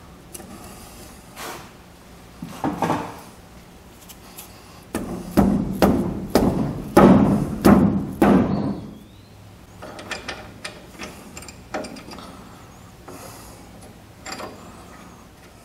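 Orange plastic-faced mallet tapping a tight carrier shim stack into a GM 8.5 10-bolt axle housing, driving it home to set carrier bearing preload. The blows come unevenly, with the heaviest run about five to eight and a half seconds in, then a few lighter knocks.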